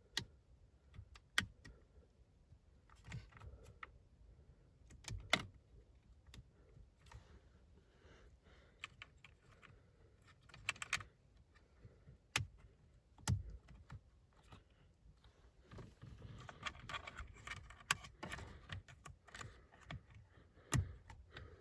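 Plastic wiring connectors being handled and pushed into a car's steering column control unit (clock spring): scattered sharp clicks, a few of them louder, with light rustling of plastic and wiring in between.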